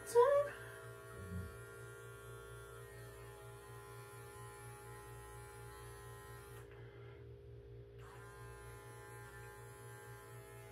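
Pink cordless electric pet clipper buzzing steadily as it trims a Standard Poodle's face and head; part of its sound drops away for about a second about two-thirds of the way in, then comes back.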